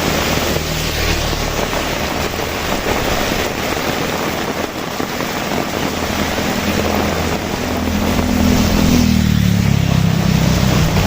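Steady heavy rainfall, with a passing motor vehicle's engine hum rising out of it about two-thirds of the way in and dropping in pitch near the end.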